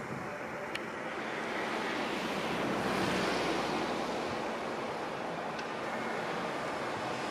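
An outdoor rushing noise that swells to a peak about three seconds in and then eases off.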